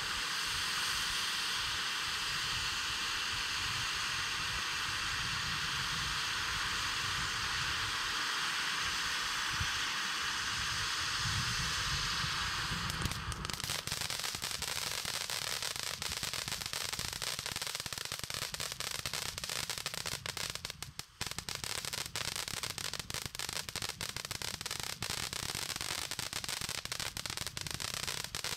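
Happy Hour firework fountain burning: a steady hiss of the gold spark spray, which about halfway through changes to dense, rapid crackling.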